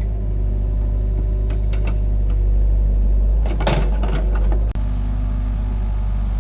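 Excavator's diesel engine running with a steady low drone, with a few sharp knocks of the bucket working and a louder burst of clanking and scraping about three and a half seconds in. The sound breaks off for an instant just before five seconds.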